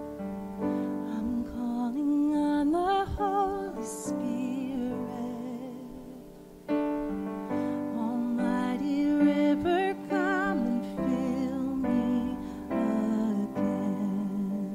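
Live worship song: sustained electric piano chords with a singer's voice carrying the melody with vibrato. The music thins and fades briefly around the middle before the keyboard comes back in on a new chord.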